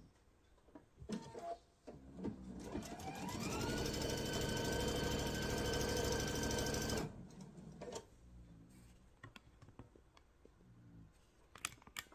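Sewing machine stitching a seam through pieced cotton fabric. About two and a half seconds in, the motor speeds up with a rising whine, runs steadily for about three and a half seconds, then stops abruptly. A few light clicks and taps come before and after.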